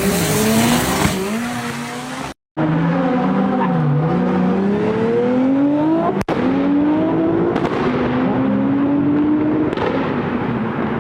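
High-performance car engines revving hard, the pitch rising and falling again and again, with abrupt cuts between clips about two and a half and six seconds in.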